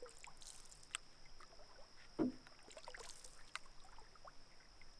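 Canoe paddling on calm water: soft drips and trickles off the paddle blades as they stroke, with one louder thump about two seconds in.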